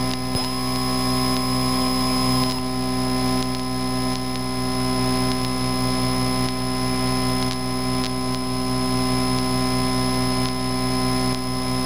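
Cessna 152's four-cylinder Lycoming engine and propeller droning steadily in the cabin during circuit flight, a constant hum made of several steady tones. A separate higher steady tone sounds for about two seconds near the start.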